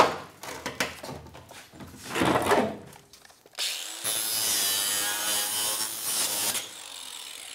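Sheet-steel car floor panel clanging sharply and scraping as it is pulled free of the body, then a handheld power tool cutting through the rusty sheet metal for about three seconds from halfway through, stopping near the end.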